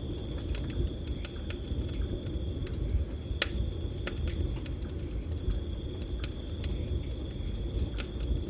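Campfire crackling with scattered sharp pops, one louder pop about three and a half seconds in, over a low steady rush of the fire. Crickets trill steadily and high throughout.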